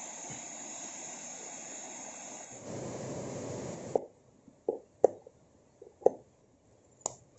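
Steady rushing outdoor noise, cut off about four seconds in; then a knife chopping a red onion on a plastic container lid: about six sharp, irregular knocks.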